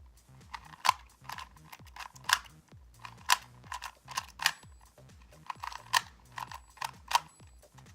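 Plastic 2x2 Rubik's cube being turned by hand, its layers clicking sharply at an irregular pace as it is solved.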